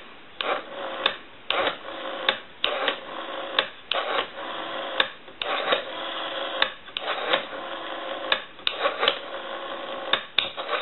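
Western Electric 5302 rotary telephone dial being dialed, digit after digit: the metal finger wheel is pulled round and let go, then clicks as it runs back and pulses out the number. There are sharp clicks all through.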